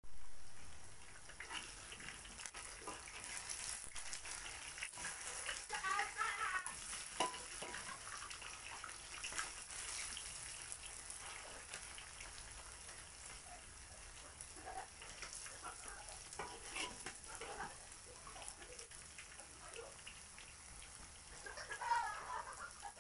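Battered banana slices deep-frying in hot oil in a wok: a steady sizzle full of fine crackling spatters. The sizzle gets louder for a moment about six seconds in and again near the end as the slices are stirred and turned with a spatula.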